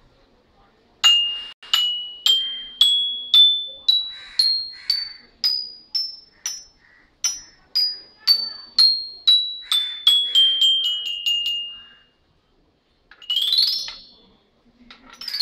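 Toy xylophone with hollow metal tube bars struck with a mallet: a scale played one note at a time up the bars, then back down, the notes coming faster on the way down. Near the end the mallet is swept quickly up the bars and then down in two glissandos.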